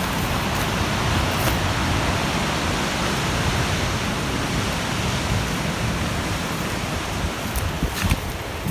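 Steady rushing noise of wind buffeting the microphone, with no distinct events.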